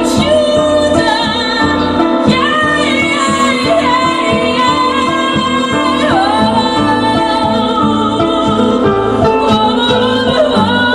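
Live music: a woman singing in long, wavering notes over an electric harp and a steady low beat.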